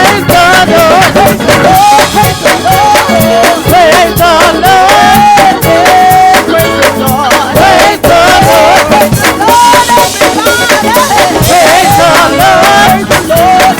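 Live gospel praise band playing loud and without a break: drums with dense, rapid hits under a wavering melodic lead line.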